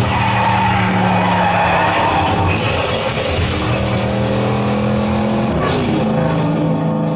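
Racing car engine running hard with tyre squeal, a film soundtrack played back over a 5.1 surround speaker system and picked up in the room. The engine note drops about five and a half seconds in.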